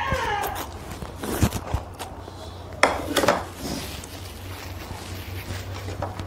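Instant noodles being slurped and chewed, with chopsticks tapping and clinking on the bowls; the loudest slurps come about a second and a half and three seconds in.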